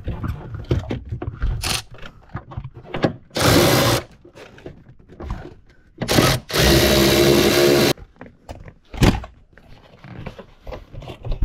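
Cordless electric ratchet spinning in two bursts, a short one a few seconds in and a longer one of about a second and a half past the middle, loosening the bolts of the convertible top frame's hockey stick bracket. Small clicks and knocks of handling come between.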